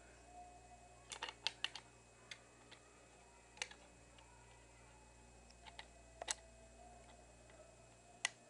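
Small clicks and taps of parts being slid and fitted into the body of a Spyder Xtra paintball marker during reassembly. About a second in comes a quick cluster of five or six clicks, then single clicks every few seconds, over quiet room tone.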